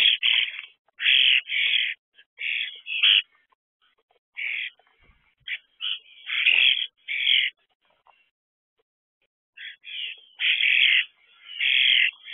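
Common starlings, adults with fledglings, giving harsh, scratchy calls in quick irregular bursts: typical of fledglings begging to be fed. The calls pause for about a second and a half, then start again.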